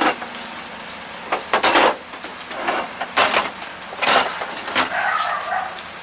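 Luggage being loaded into a Toyota Sienta's rear cargo area: a run of knocks and clatters as items, among them a flat metal case, are set down and slid across the cargo floor.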